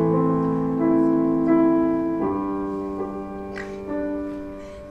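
Slow piano music: held chords that change every second or so, growing quieter toward the end.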